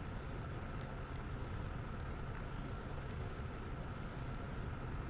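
Citizen 8200 automatic watch movement ticking just after being fully wound: a fast, regular, high-pitched tick about six times a second over a steady low hum.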